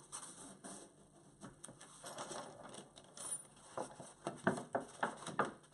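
Thick painted paper pages being handled: light rustles and taps at first, then a quicker run of sharp paper rustles and knocks toward the end as the pages are picked up.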